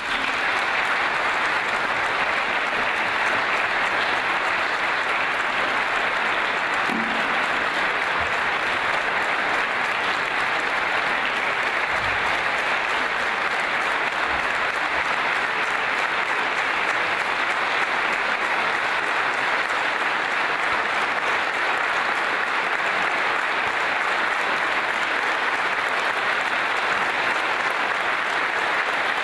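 Loud, steady applause from a large audience clapping together in a big hall.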